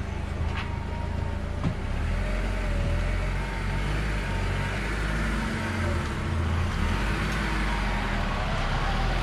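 Honda people carrier's engine running at low speed as the car manoeuvres close past the microphone, a steady low rumble with tyre noise, with a couple of faint ticks in the first two seconds.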